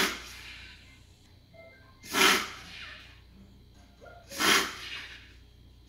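Dog giving three sharp, forceful sneezing snorts through its nose, about two seconds apart, each about half a second long. The owner wonders whether these are a reverse sneeze.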